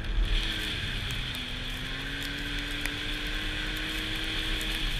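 Arctic Cat snowmobile engine running at a steady trail cruise, with track and wind noise. The engine note eases slightly about a second in, then slowly climbs again.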